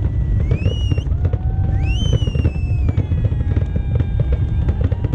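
Fireworks display: a continuous low rumble of booming shells with dense crackling pops. Two rising whistles come in the first two seconds, followed by several held tones.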